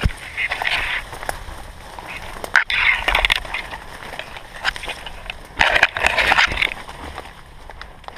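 Leafy branches and brush swishing and scraping against the camera as it pushes through dense undergrowth, in three rustling bursts: at the start, about three seconds in and about six seconds in. Between them, footsteps crunch over twigs and dead leaves with small cracks.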